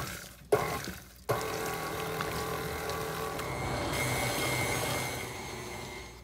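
KitchenAid stand mixer running, its flat beater churning boiled potatoes with butter and cream into mash. The sound comes in abruptly twice in the first second or so, then runs steadily and eases off near the end.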